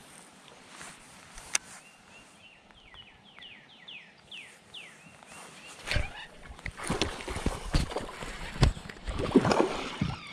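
A bird sings a run of about ten short falling notes, then clicks, knocks and rustling come as fingers handle a baitcasting reel and rod close to the microphone, loudest near the end.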